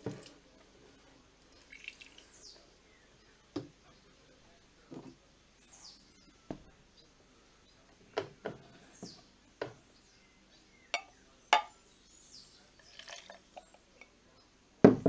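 Glass jars and a blender jug being handled and set down on a table: a string of separate knocks and clinks, the loudest near the end. Small birds chirp faintly in the background.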